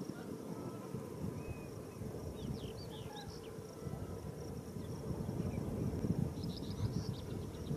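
Small birds chirping in two quick bursts of short swooping notes over a steady low rumble.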